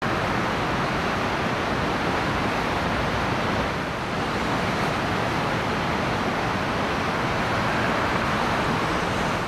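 The swollen Arno rushing over a river weir, a steady noise of churning water.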